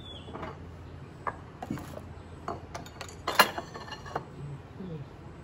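Kitchen clatter: a bowl and dishes clinking and knocking against the countertop, a series of scattered clicks with the loudest about three and a half seconds in.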